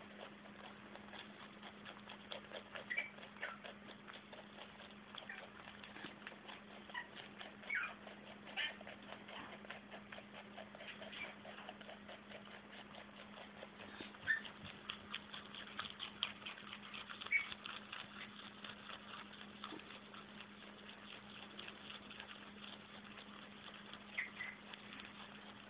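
Flemish giant rabbit chewing parsley fast and without a break: a quick, continuous run of small crunching clicks, with a few louder crunches now and then. A steady low hum sits underneath.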